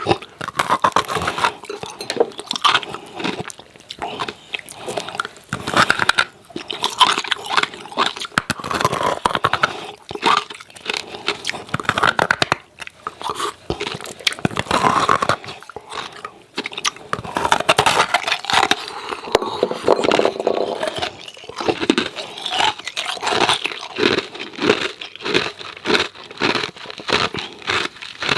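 Hard ice cubes crunched and chewed close to the microphone: a dense, uneven run of sharp cracking crunches, getting quicker and shorter toward the end.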